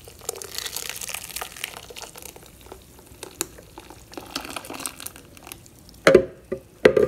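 Blended salsa verde poured from a blender jar into a glass bowl: thick liquid splashing and glugging. Two loud knocks come near the end.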